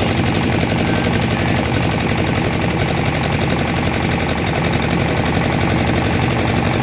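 An engine running steadily and loudly at close range, with a fast, even chugging beat.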